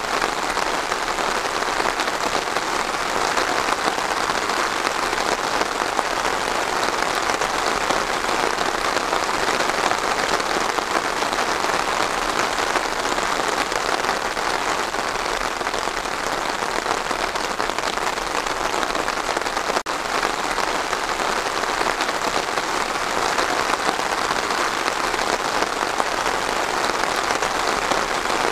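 Steady rain falling on trees, an even, unbroken hiss of drops with no change in strength.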